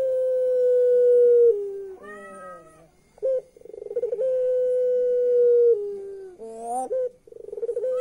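Puter pelung ringneck dove calling: a fast stuttering, laugh-like chuckle runs into a long held coo that steps down to a lower pitch at its end. This happens twice, and a third chuckle starts near the end.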